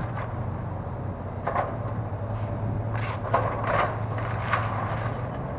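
Komatsu excavator's diesel engine running steadily as the machine tears into a house roof, with sharp cracks and crashes of breaking roofing and timber: one about a second and a half in, then a cluster from about three to four and a half seconds in.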